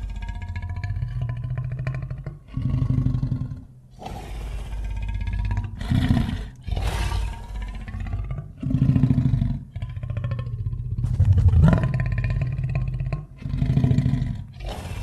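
Monster roar sound effects, repeated about every three seconds, over background music with steady sustained tones.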